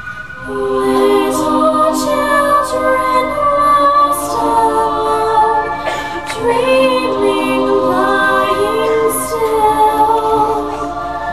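Music with singing: long held, sung notes over a steady backing, swelling in about half a second in.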